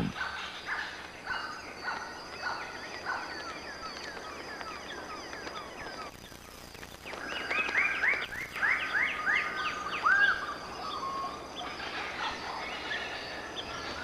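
Lesser birds of paradise calling at their display tree: repeated short notes that slide downward, coming in a thicker, louder run between about seven and ten seconds in. This is the males' calling at a communal display tree to attract females. A steady faint high insect whine runs underneath.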